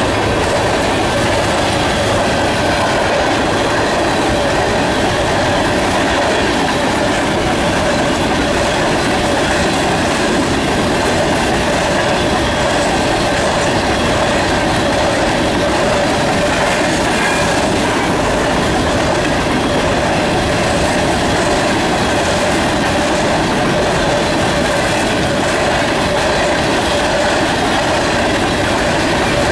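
Freight train of covered grain hopper cars rolling steadily past close by: a loud, even rumble and clatter of steel wheels on rail, with a steady ringing squeal over it.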